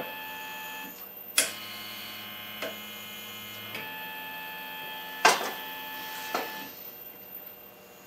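Stepper motor of a home-built ventilator whining as it drives the piston through a timing belt, its set of steady tones switching pitch with each stroke as the machine cycles through breaths. Two sharp clicks, about four seconds apart, are the loudest sounds.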